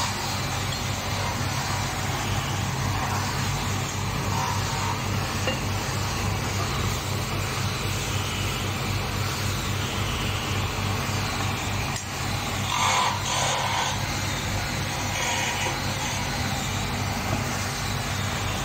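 Steady low motor hum over a haze of machine noise, with a brief louder rush of noise about thirteen seconds in.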